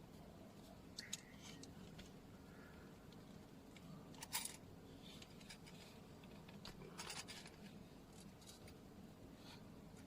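Near silence: quiet room tone with a few faint, brief clicks and small metallic jingles, the loudest around four and a half seconds in.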